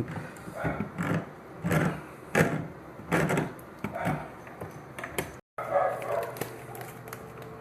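A dog barking repeatedly, a short bark about every second. After a brief dropout, a steady hum.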